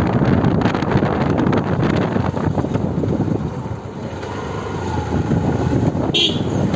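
Wind buffeting the microphone over the rumble of a moving vehicle riding along a rough road. About six seconds in comes one brief, sharp, high-pitched sound.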